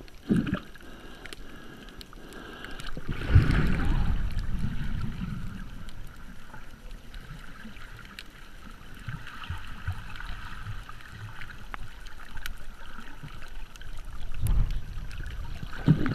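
Muffled underwater sound picked up by a GoPro in its waterproof housing: low rumbling water movement that swells about three seconds in and again near the end, with faint scattered clicks.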